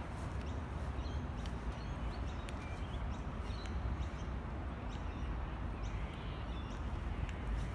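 Outdoor park ambience: a steady low rumble, with faint short bird chirps and light scattered ticks.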